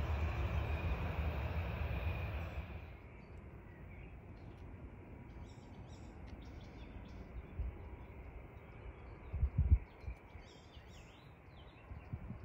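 Aircraft engine noise ends sharply about two and a half seconds in. Birds chirp in short bursts over a quiet outdoor background, with one brief low thump near the middle.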